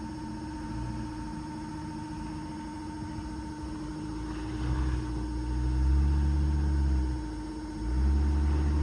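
A vehicle engine climbing and falling in revs, louder from about halfway through, easing off briefly near the end and then picking up again, over a steady electrical hum.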